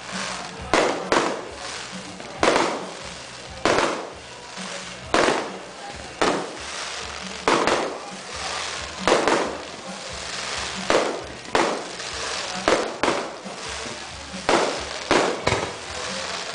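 Fireworks going off in a steady run of sharp bangs, about one a second, each followed by a short echoing tail.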